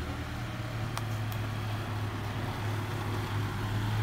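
Car engine running steadily with a low, even hum.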